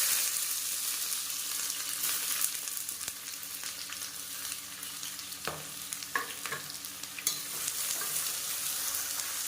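Sliced onions and curry leaves sizzling in hot oil in a pressure cooker. The sizzle starts sharply as they go in and runs on steadily, with a spoon stirring and scraping now and then.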